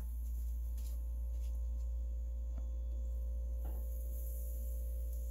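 Steady low electrical hum with a few soft clicks as breaded fish chunks are set into a wire fryer basket.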